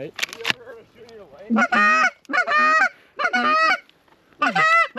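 Goose honks: a quick series of loud, two-part honking calls starting about a second and a half in, after a few sharp clicks.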